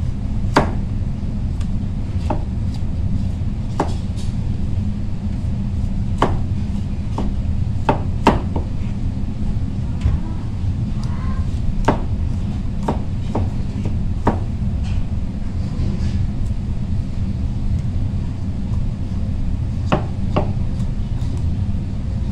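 Chef's knife cutting through a raw squash and knocking on the cutting board: irregular sharp knocks, one every second or two. A steady low rumble runs underneath.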